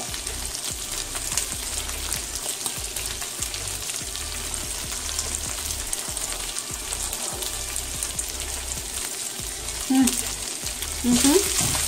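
Chicken strips sizzling steadily in a hot frying pan over high heat, browning, with a wooden spoon stirring and scraping in the pan. Short vocal sounds near the end.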